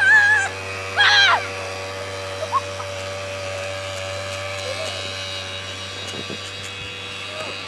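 Quad bike (ATV) engine running with a steady drone while it tows a rider through the snow. Two loud, high-pitched yells come near the start, with a short, fainter call a little later.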